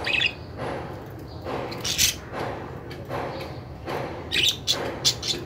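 Budgerigars chirping and squawking in short, sharp bursts, with a few quick taps among them, the strongest about two seconds in and a cluster near the end.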